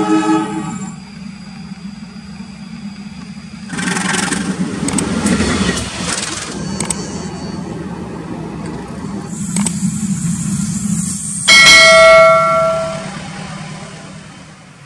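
CC 206 diesel-electric locomotive with its train: a horn blast fading out about a second in, a steady engine hum, a roar of the train going by from about four seconds in, and a second loud horn blast near the end, about a second and a half long.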